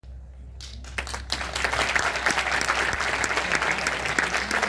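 Audience applauding: a few scattered claps at first, then the full crowd joins in about a second and a half in and keeps up a steady applause.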